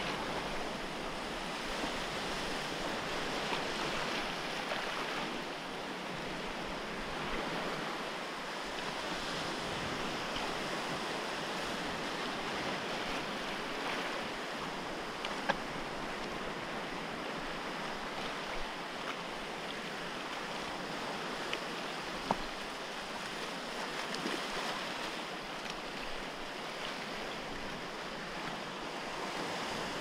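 Small waves washing over a shallow reef and breaking on the rocks along the shore, a steady rushing noise of surf. A couple of short sharp knocks stand out, about halfway through and again about two-thirds of the way in.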